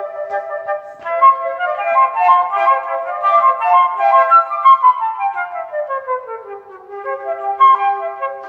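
Two transverse flutes playing a duet in quick runs of notes, with one part descending a scale about five seconds in.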